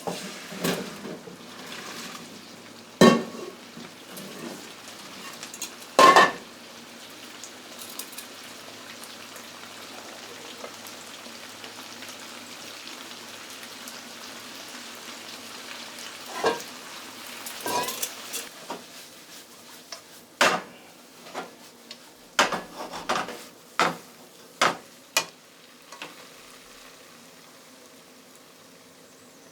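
Food sizzling in a frying pan as it is stirred, with sharp knocks of a utensil against the pan and dishes, coming in a quick run near the end.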